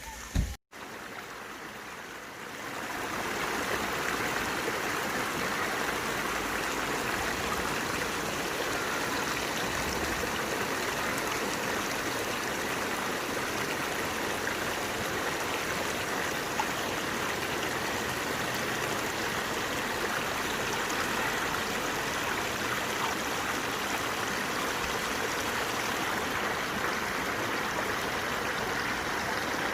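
Valley stream water running steadily. A brief thump and a moment of dropout come just after the start, then the water sound rises to full level about three seconds in.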